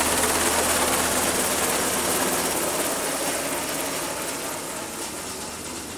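MH-60R Seahawk helicopter's rotor and twin turboshaft engines running steadily, the sound fading gradually as the helicopter flies away.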